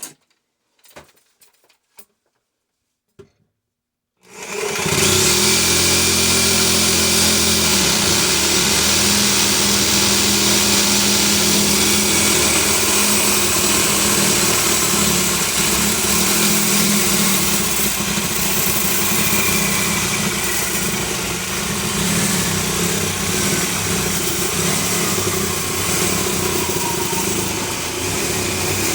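A few light handling clicks, then about four seconds in a power cutting tool starts abruptly and runs steadily and loudly under load, with a strong hiss, as it cuts open a sealed refrigeration compressor's steel shell.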